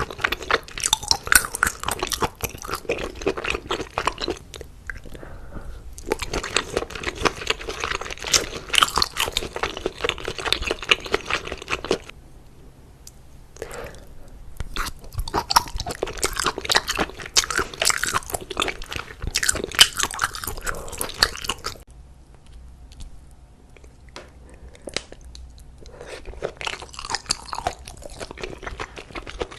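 A person chewing and crunching food close to the microphone, with wet, crackly bites coming in long spells broken by short pauses.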